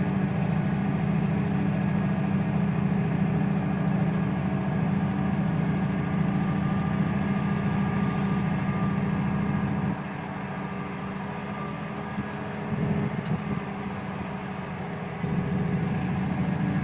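Massey Ferguson 7626 tractor's six-cylinder diesel engine running steadily under way, heard from inside the cab. The engine note drops about ten seconds in and comes back up near the end.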